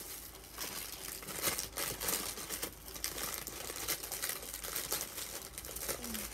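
Clear plastic packaging around a bundle of makeup brushes crinkling as it is handled, a run of irregular crackles.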